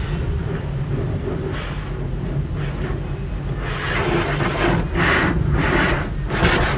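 Tunnel car wash heard from inside the car: a steady low rumble of the wash machinery, and from a few seconds in, water spray hitting the windshield and body in repeated sweeping hisses, about two a second, growing louder.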